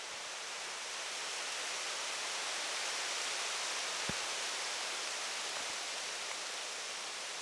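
Steady rushing hiss, rising a little toward the middle, with one short click about four seconds in.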